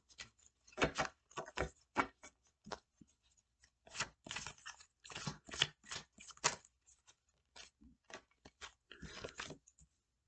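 Tarot cards being shuffled and handled: irregular short snaps and rustles, some bunched into quick clusters.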